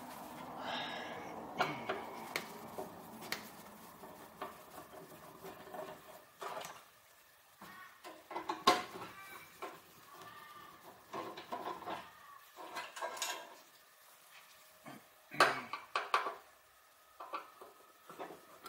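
A screwdriver undoing screws from the steel cabinet of a laboratory oven: scattered metallic clicks and scrapes. Loose screws clink as they are put down on a concrete floor, and the sharpest clicks come about halfway through and again near the three-quarter mark.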